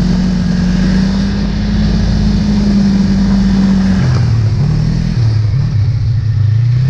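Snowmobile engine running under way at steady high revs, then easing off about four seconds in to lower, unsteady revs before picking up again near the end.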